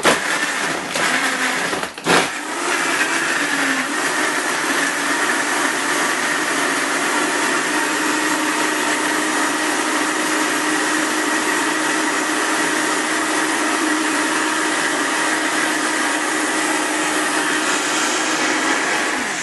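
Vitamix blender running steadily, crushing ice cubes with peeled oranges and sugar into sorbet. It falters briefly about two seconds in, then runs on at an even whir.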